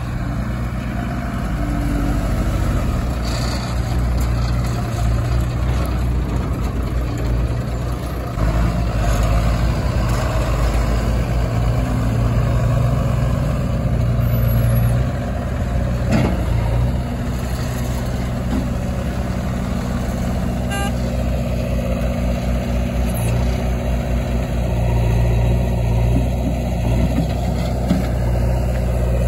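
Diesel engines of a JCB backhoe loader and a Tata 2518 tipper truck running steadily, growing louder about eight seconds in, with a single knock around sixteen seconds.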